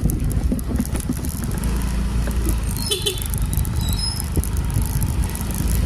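Steady low rumble of riding along a street: wind and road noise on the microphone of a moving vehicle. A short high tone cuts in briefly about three seconds in.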